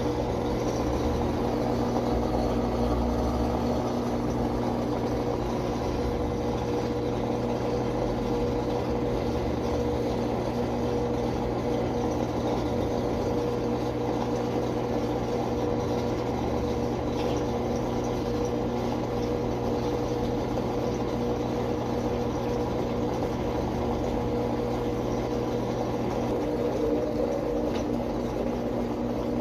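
Brastemp BWG10 washing machine running under test, its motor giving a steady, even hum.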